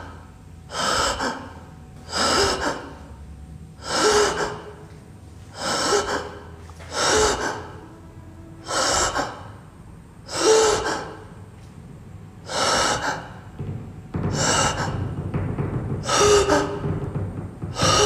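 A man breathing in loud, heavy gasps, about one every second and a half. From about three-quarters of the way through, a low steady noise sits under the gasps.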